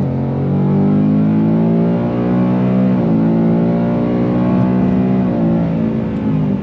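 Ford Mustang GT's 5.0-litre V8 accelerating hard at full throttle. Engine pitch climbs, then drops with an upshift right at the start, about three seconds in and again near the end.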